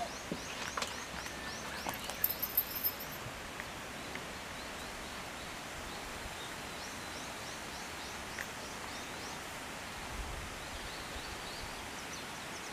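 Rural outdoor ambience: a steady background hiss with distant small birds chirping in short repeated runs, and a few faint clicks in the first few seconds.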